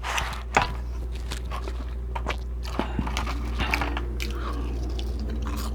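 Close-miked eating: a person biting and chewing fast food in irregular moist, crunchy clicks, over a steady low hum.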